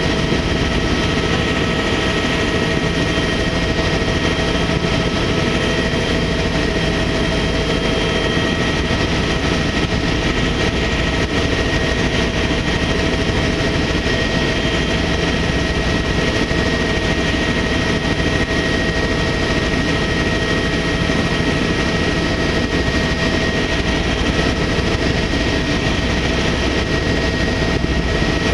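Helicopter in steady flight, heard from on board: an even rotor and engine drone with a steady high whine over it.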